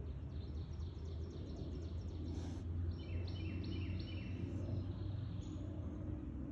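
Light rain pattering on the surface of a creek and the leaves around it, with a steady low rumble underneath. A songbird sings over it, first a quick run of high chirps, then a few phrases of short notes stepping down in pitch about three to four and a half seconds in.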